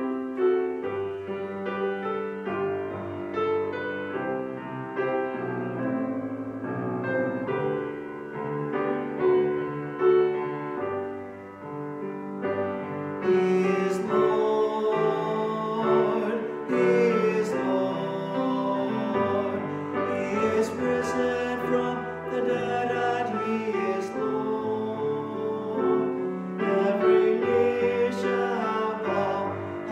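A hymn with piano accompaniment and singing voices, starting abruptly.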